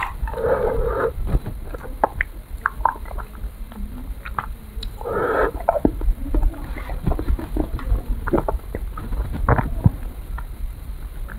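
Close-miked mouth sounds of a person eating an ice cream bar: scattered wet smacks and clicks while chewing, with two longer wet sucking sounds, one about half a second in and one around five seconds in.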